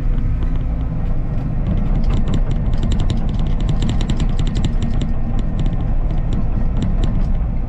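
Heavy machine's diesel engine running steadily, with a dense run of sharp crackles and snaps through the middle as brush and limbs are piled onto a burning brush pile.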